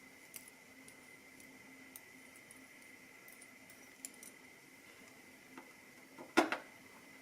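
Light clicks of small metal lock parts being handled as spool pins and springs are taken out of a lock core, with one louder clack about six and a half seconds in.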